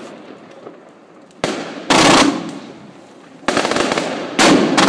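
Royal Fireworks Mega Cakebox firework cake firing: four sharp reports, the first about a second and a half in, each trailing off over about a second. The last two are followed by rapid crackling.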